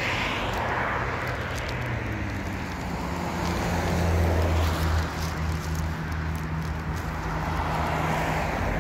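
Road traffic going by: a wash of tyre noise that swells and fades as vehicles pass, with a low engine hum coming in about three seconds in and holding.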